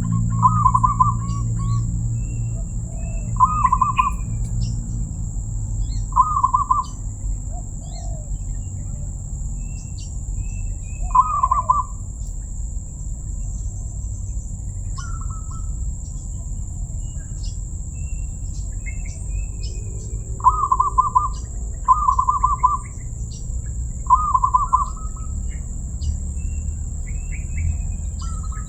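Zebra dove (perkutut) cooing: short stuttering coos repeated at uneven gaps, several close together about two-thirds of the way in. Small birds chirp faintly in between over a steady high-pitched hiss.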